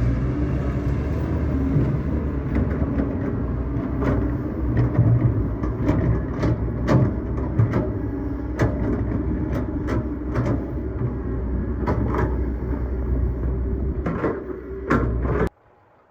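Excavator's diesel engine running steadily under load, with frequent sharp knocks and clanks from the machine at work. The sound cuts off suddenly near the end.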